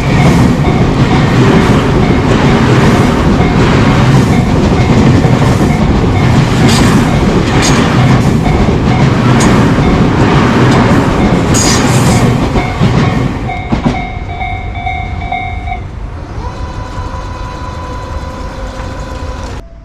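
Tobu Tojo Line train passing over a level crossing: loud rushing wheel-on-rail noise with sharp clacks of the wheels over rail joints. The crossing's warning bell rings a rapid repeating ding throughout. The train noise fades from about fourteen seconds in, and the bell stops a couple of seconds later.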